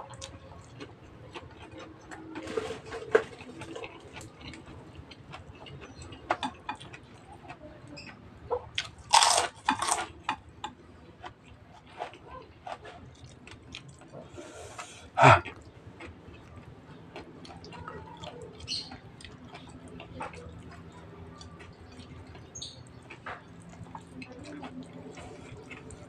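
Close-up eating sounds: a man chewing crunchy raw-vegetable karedok with rice, with small wet mouth clicks and fingers scooping through the stone mortar. A few louder sharp noises come about nine to ten seconds in, and the loudest comes about fifteen seconds in.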